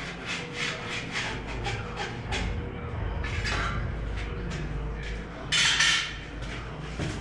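Pencil scratching on a concrete wall in a run of short strokes as a line is drawn along a spirit level. About five and a half seconds in comes a louder half-second scrape, over a low steady hum.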